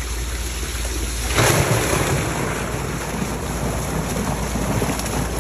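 Water and fish gushing out of a fish transport tank through its opened hatch: a sudden loud rush of water starts about a second and a half in and keeps pouring, over a steady low hum.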